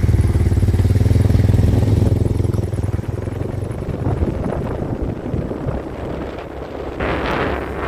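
Motorcycle engine running as the bike rides along, a strong steady engine note for the first few seconds that then grows rougher and weaker. Near the end, wind buffets the microphone.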